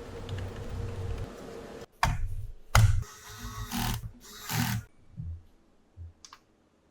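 Computer parts being handled: a rustle, then two sharp clicks less than a second apart, followed by a few short scraping bursts and one faint click near the end.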